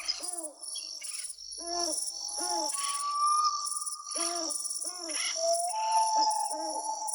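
Forest birdsong: pairs of short hooting calls repeat about every two seconds, alternating with long, steady whistled notes. A continuous high-pitched chirring runs underneath.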